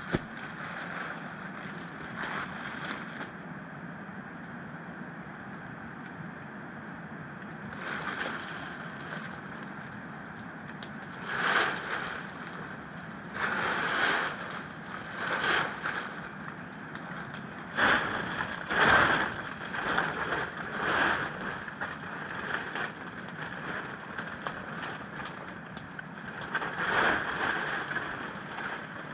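Steady rushing of a swollen river, with irregular louder rustling bursts on top, several in the middle stretch, from the plastic tarp being pulled over the shelter frame.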